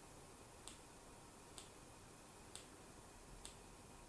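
Faint, small plastic clicks about once a second, four in all, from the buttons of a wireless bicycle computer being pressed while it is set up.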